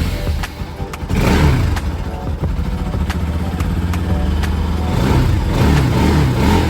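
Single-cylinder engine of a Bajaj Pulsar NS200 motorcycle idling, revved briefly about a second in and again around five seconds in.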